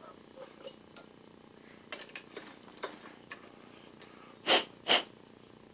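Faint clicks and small knocks of steel being handled at a stopped metal lathe as a freshly turned part is loosened from the chuck and lifted out, followed near the end by two short, louder hissing puffs about half a second apart.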